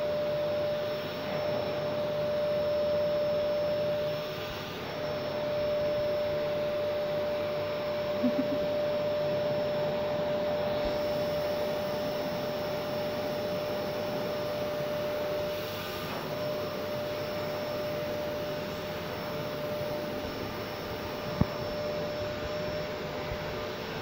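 Canister vacuum cleaner running steadily with a constant whine, its brush nozzle being drawn over a cat's fur. One short sharp click comes near the end.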